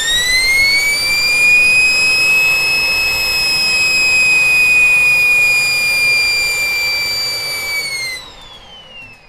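Homemade turbocharger-based gas turbine's rotor spun up to a steady high whine with a rushing air noise. About 8 seconds in the rushing stops suddenly and the whine falls in pitch as the rotor winds down. This is a start attempt that fails, which the builder puts down to fuel pressure set too low or a weak igniter plug.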